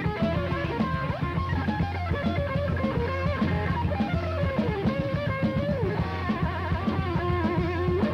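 Live metal band playing: an electric guitar lead with pitch bends and wide vibrato over the rest of the band and a busy drum kit.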